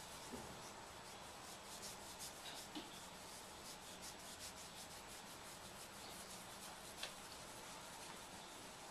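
Faint rustling and rubbing of fingers working through long hair and over the scalp and neck in a head massage. A single small click comes about seven seconds in.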